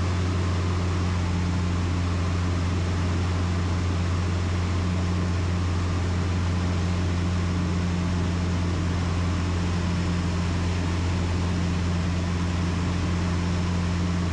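American Champion Super Decathlon's piston engine and propeller running steadily at an unchanging pitch, heard inside the cockpit in flight.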